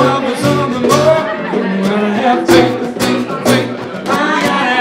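A woman sings a song live with strummed acoustic guitar accompaniment, recorded straight from the sound desk.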